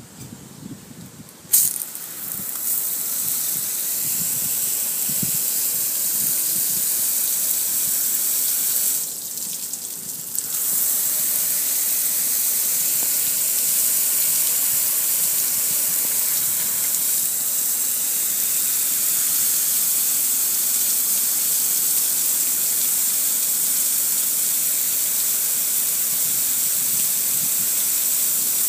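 Water spraying over a gas grill's lid and control panel. It makes a steady hiss that starts abruptly about a second and a half in, drops away briefly around nine seconds, then carries on.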